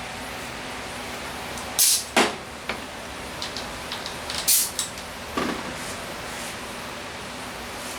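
A few short knocks and clicks, two of them loud about two seconds in and more around the middle, over a steady hiss.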